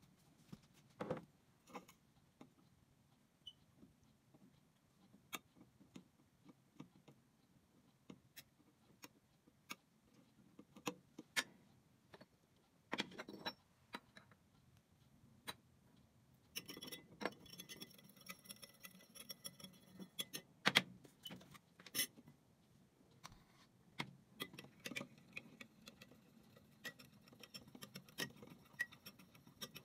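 A metal teaspoon clinking against a cup while milk is stirred into tea: scattered light taps, then a denser run of ringing clinks in the middle.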